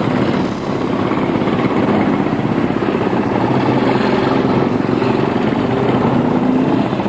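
A group of Royal Enfield Bullet motorcycles riding past close by, their single-cylinder four-stroke engines running together in a steady drone.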